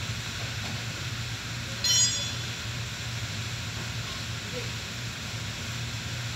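A steady low mechanical hum with an even hiss, and one short, high-pitched ring about two seconds in.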